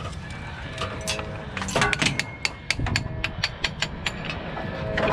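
Heavy steel roller chain of a raft conveyor clinking and clanking as it is handled over its sprocket. Irregular sharp metallic clinks, coming thick and fast from about two seconds in.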